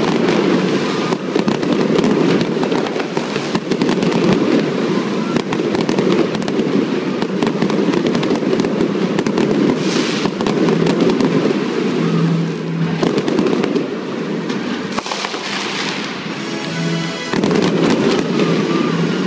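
Fireworks display: a continuous barrage of aerial shells, comets and fountains going off, with dense crackling and bangs throughout, over music playing underneath.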